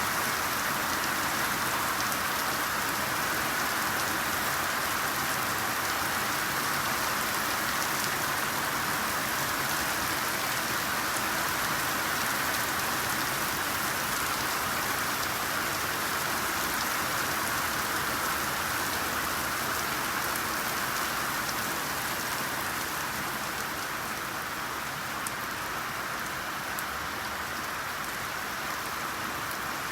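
Steady rainfall: an even hiss of many raindrops, easing slightly about two-thirds of the way through.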